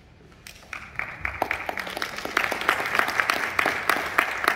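Audience applauding. The clapping starts about half a second in and swells to a steady level.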